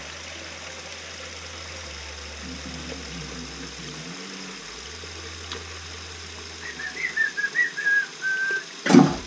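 Bathroom sink faucet running steadily into the basin and down the drain. Near the end someone whistles a short run of notes, and just before the end there is one sharp, loud knock.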